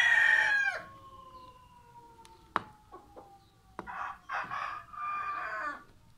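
Rooster crowing, the crow falling away and ending within the first second, followed later by further rooster calls about four and five seconds in. A couple of sharp taps sound in between.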